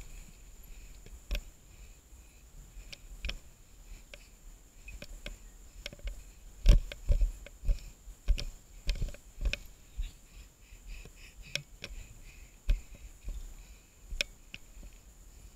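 Mountain bike jolting over roots and stones on a dirt trail, heard through the action camera riding on it: irregular knocks and rattles, the loudest cluster coming about seven to ten seconds in. A steady high insect drone runs behind.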